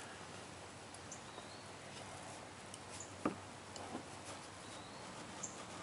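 Quiet handling sounds: a few faint clicks and scrapes, with one sharper click about three seconds in, as needle-nose pliers pull the old desiccant bag out of a car AC receiver drier.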